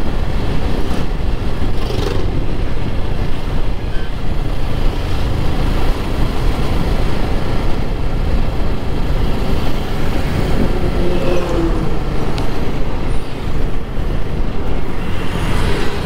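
Motorcycle riding at road speed: a steady rush of wind and road noise with the engine running underneath.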